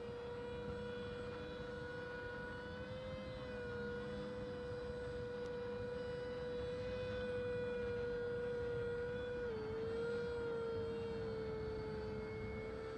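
Banana Hobby V-22 Osprey RC tiltrotor flying overhead, its electric motors and propellers giving a steady whine. The pitch drops slightly about nine and a half seconds in.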